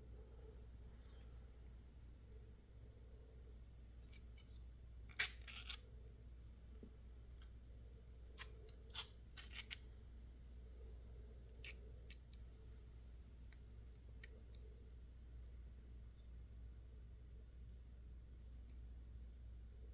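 Small metal lock parts and tools clicking and tapping in scattered short groups as the Goal S lock is taken apart and its pins removed, over a steady low hum.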